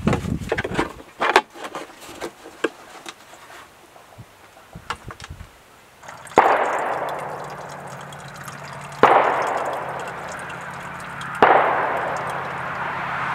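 Clicks and knocks of a plastic oil drain pan and jug being handled. Then used engine oil pours from the pan's spout into a plastic jug, in surges about every two and a half seconds, each starting suddenly and tapering off.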